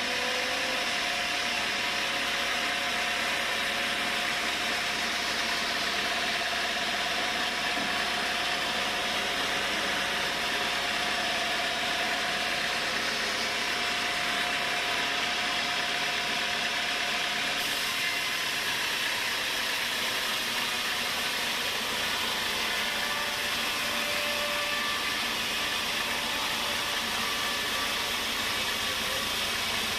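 Sawmill running steadily as a large log is sawn, with a steady mechanical noise and a thin whine that fades out a little past halfway.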